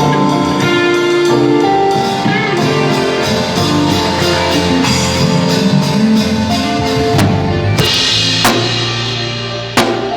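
Live band playing at a sound check: drum kit with sustained pitched chords over it, and a louder crash about 8 seconds in.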